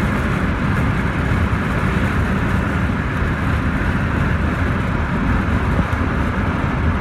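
Steady road and tyre noise of a car driving at highway speed, heard from inside the car.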